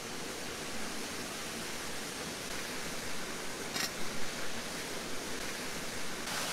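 Steady rushing of a small waterfall, with a single sharp click just under four seconds in.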